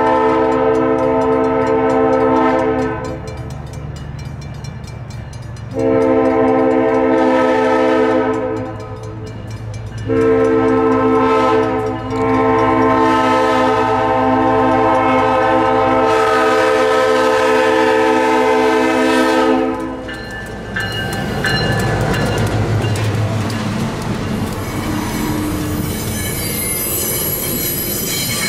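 Diesel switcher locomotive's air horn sounding the grade-crossing signal: two long blasts, one short and a final long blast held for about eight seconds. Then the locomotive and its passenger coaches pass close by, with engine rumble, wheels clicking over the rail joints and a thin high squeal near the end.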